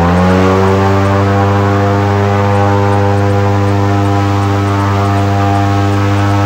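Airboat engine and propeller running at a steady high speed, just after revving up.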